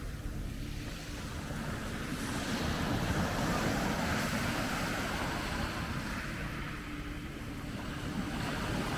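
Sea waves washing onto the shore, one swell building and easing off in the middle, with wind rumbling on the microphone.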